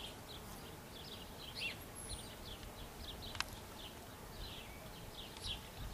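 Small birds chirping in many short, high notes over a faint steady outdoor background, with one sharp click about three and a half seconds in.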